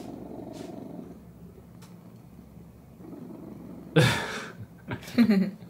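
Domestic cat purring steadily while lying on a lap being stroked, the purr softer for a couple of seconds in the middle. About four seconds in comes a loud breathy puff, and about a second later a brief voiced sound.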